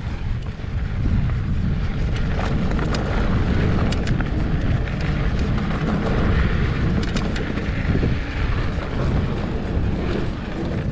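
Wind rumbling on the microphone of a mountain bike ride, with the tyres running over a dirt trail and the Trek Slash 7's frame and chain rattling in many short, sharp clicks.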